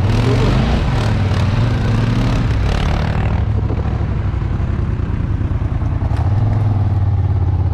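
ATV engine running steadily with a low drone, under a loud noisy rush for the first three seconds or so that then dies away.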